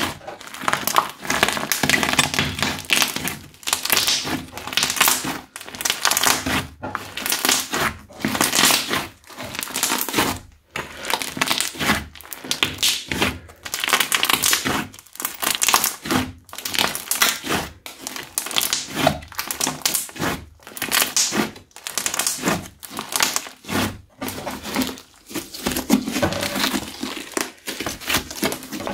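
Crunchy slime being kneaded, squeezed and stretched by hand: dense crackling and crunching that comes in repeated bursts with brief pauses between squeezes.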